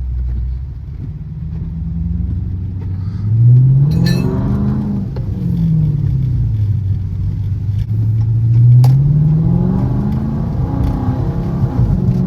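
Chrysler 300C's HEMI V8 revving under hard acceleration on a wet road: the engine pitch climbs, drops back, then climbs again, over the hiss of the tyres.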